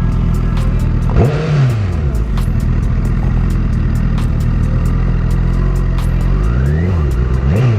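Honda CBR1000RR inline-four with a full titanium exhaust idling, blipped once about a second in and twice near the end, the revs rising and falling quickly each time.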